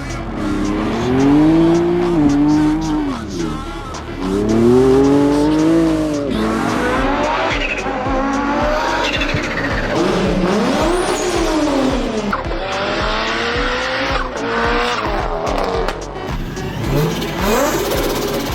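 Turbocharged car engines revving hard again and again, the pitch sweeping up and falling back with each rev, with turbo whistle on the spool.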